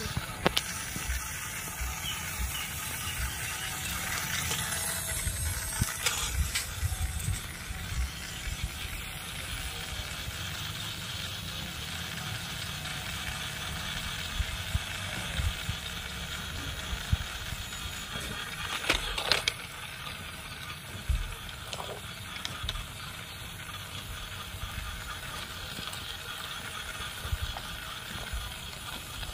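Small mechanism clicking and rattling over a low rumble, with a few sharper clicks.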